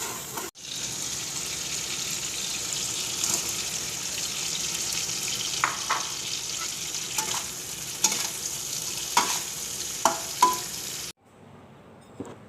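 Food frying in hot oil in a pan: a steady sizzle, with several sharp clinks and scrapes of a utensil against the pan in the second half. The sizzle cuts off abruptly near the end.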